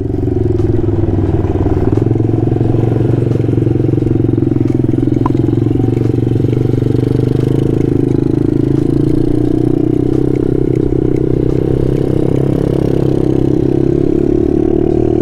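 A 125cc pit bike engine running steadily under the rider, its pitch wavering a little up and down as it goes through the corners.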